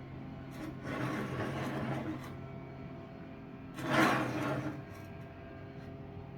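Scraping, sliding sounds of parts worked on a Skil 10-inch table saw while its blade is aligned to the miter slot: one longer scrape about a second in, then a shorter, louder one, over a steady low hum.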